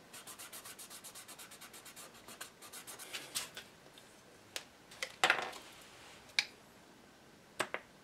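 A cotton swab rubbing mineral oil over scotch tape on a bakelite panel: a quick run of soft scrubbing strokes, about seven a second, for the first three seconds or so. Then come a few sharp clicks and a louder knock with a brief rustle as the panel is handled, and two quick clicks near the end.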